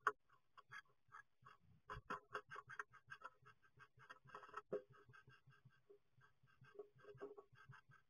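Great tit scrabbling and tapping on the bare wooden floor of a nest box: quick, irregular scratches and taps, several a second, heard close up inside the small box.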